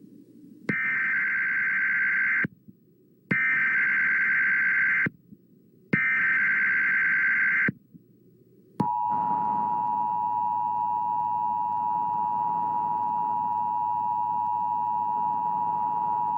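Emergency Alert System SAME header: three screechy data bursts, each a bit under two seconds, with short gaps between. About nine seconds in comes the steady, sour two-tone EAS attention signal, over a low hiss.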